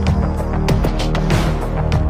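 Outro music: sustained low bass tones with sharp drum hits.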